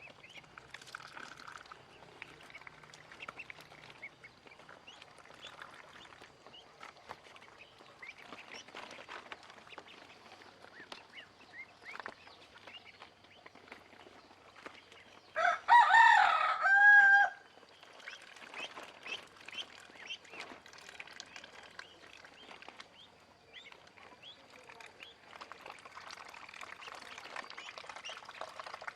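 Ducklings peeping faintly and continually. A little past halfway comes one loud, wavering bird call, about two seconds long.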